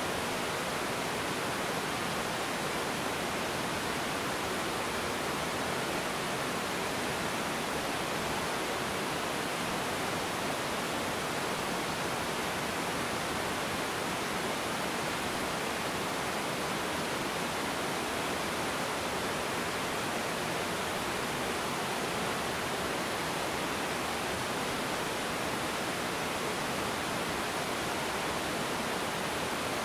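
Small river waterfall: water pouring over a rocky ledge and rushing over stones, a steady, unbroken rush of white noise.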